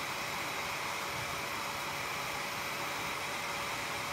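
Desktop FDM 3D printer's cooling fans running: a steady whirring hiss with a faint constant tone.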